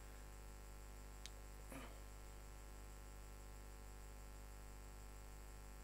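Low steady electrical mains hum, with a faint click about a second in and another faint brief sound just before two seconds.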